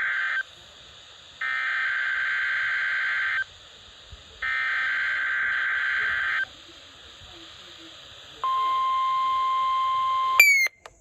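NOAA Weather Radio Required Weekly Test tones: the tail of one burst of SAME header data tones, a buzzy warble, then two more bursts of about two seconds each, a second apart. About a second and a half after the last burst the steady 1050 Hz warning alarm tone starts; near the end a loud click and a brief dropout cut it off before it resumes. The tones are a test of the signal that switches on weather alert receivers.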